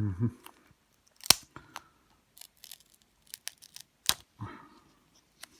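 Packaging being handled: two sharp clicks, one about a second in and another near four seconds, with light rustling and crinkling between.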